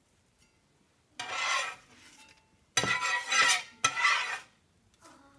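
A spatula scraping three times, in short rasping strokes, as pancakes are lifted off the cooking surface. The second stroke starts with a sharp clack.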